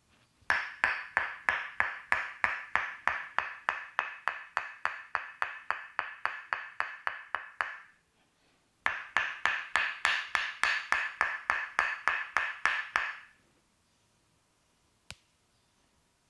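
Tok sen massage: a wooden mallet tapping a wooden wedge, about four sharp knocks a second, each with the same ringing pitch. The tapping comes in two runs, a long one of about seven seconds and a shorter one of about four, and one last single knock comes near the end.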